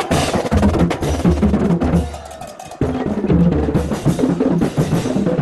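Marching band drumline playing snare and bass drums in a steady rhythm. It drops away briefly about two seconds in and comes back in under a second.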